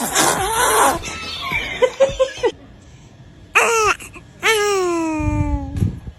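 A newborn baby crying: a short wail about three and a half seconds in, then a longer wail that slowly falls in pitch. Laughter is heard in the first second.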